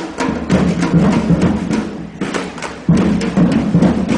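Street drum group playing a steady, driving rhythm of about four to five strokes a second. It eases off briefly about two seconds in, then comes back in hard just before the three-second mark.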